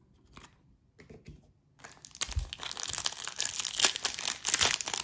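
Foil wrapper of a trading-card pack crinkling and tearing as it is ripped open, starting about two seconds in after a few faint clicks of handled cards.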